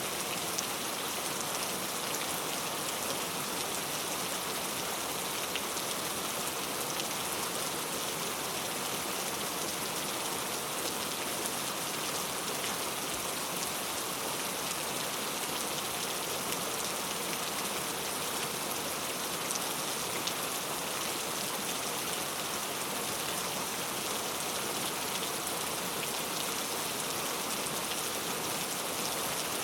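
Steady rain falling, an even hiss with many small drop patters, with no change in strength.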